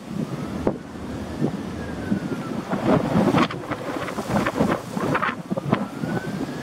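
Wind buffeting the microphone in irregular gusts. A faint thin tone slowly rises and falls underneath, starting to rise again near the end.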